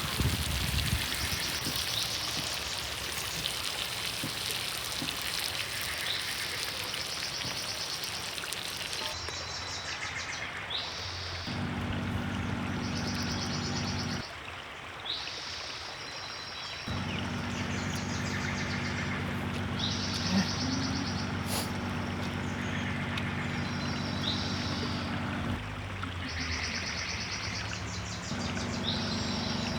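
Steady rushing of river water with a bird singing a short high trill over and over, about every two seconds. Through parts of it a steady low mechanical hum, like an idling motor, comes and goes, starting and stopping abruptly several times.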